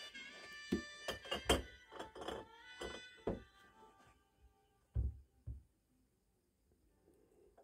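Background music with sustained tones in the first half, over a run of sharp knocks and clinks as a glass bottle and a long metal tool are handled at a wooden box; two dull thuds about five seconds in.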